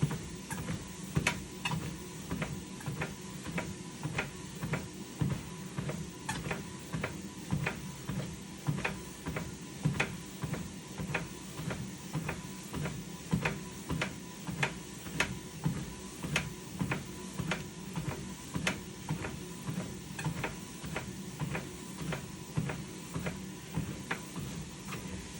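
Lifespan Fitness TR1200B treadmill running under a low steady hum of the motor and belt, with a sharp click or knock from the deck about twice a second in time with the footfalls.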